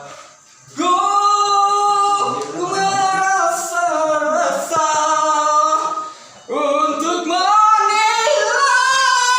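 A singer's voice holding long, high notes with vibrato, in two phrases separated by a short breath about six seconds in; no clear words, as in a vocal exercise.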